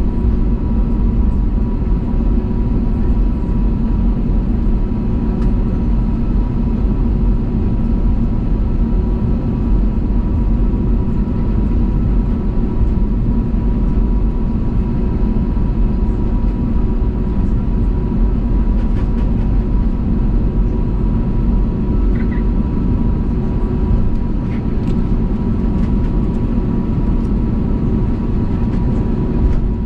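Steady cabin noise of an Airbus A320neo airliner, its Pratt & Whitney geared turbofan engines and the airflow making a loud even rumble with a few held tones over it, as heard from inside the passenger cabin.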